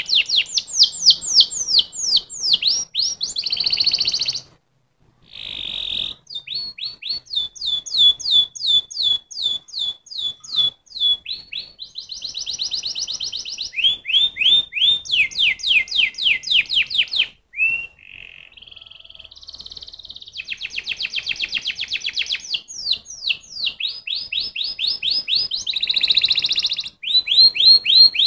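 Domestic canary singing: long runs of rapid downward-sweeping whistled notes, several a second, alternating with faster buzzing trills, with a brief pause about five seconds in.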